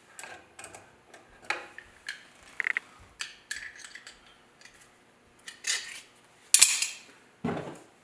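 Metal Allen wrenches (hex keys) clinking and tapping as they are picked through and tried for size, a run of short, irregular clinks. Near the end comes a sharper, louder metallic clink followed by a duller knock.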